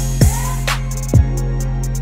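Background music with a beat: a deep kick drum that drops quickly in pitch hits twice over a steady low bass line.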